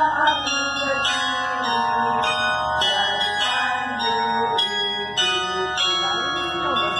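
Tower bells of Perth's Bell Tower, the Swan Bells, ringing a peal: a new strike comes every half second to a second, and the tones hang on and overlap.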